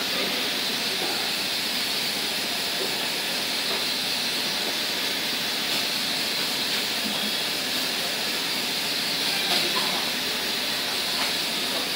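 Compressed-air spray gun hissing steadily as it mists chemical solution onto the pot during hydrochrome spray chroming.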